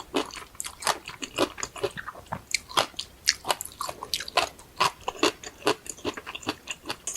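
Close-miked chewing and crunching of food: a quick run of short crisp crunches and mouth clicks, several a second.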